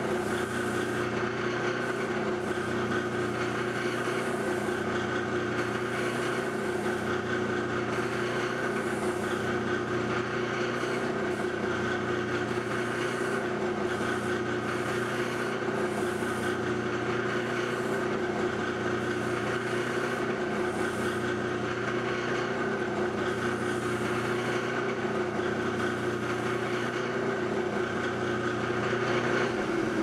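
Polishing machine running steadily with a hum, its greaseless-compound wheel spinning while a pocket knife's celluloid handle is worked against it to take out sanding scratches and round the edges.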